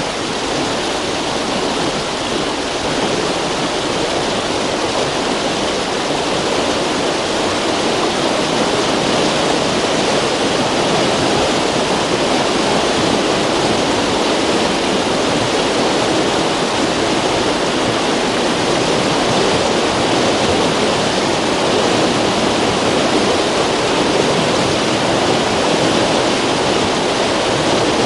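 River water rushing and splashing over rocks, a steady, dense roar of flowing water with no breaks.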